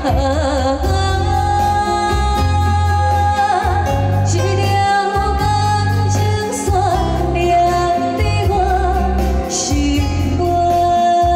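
A woman singing into a microphone with a live band: violin and keyboard over a steady beat and a strong bass.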